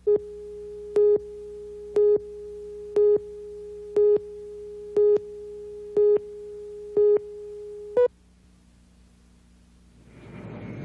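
A steady electronic tone with a louder beep at the same pitch about once a second, eight beeps in all. It cuts off suddenly about eight seconds in. A low rumble begins to rise in the last second.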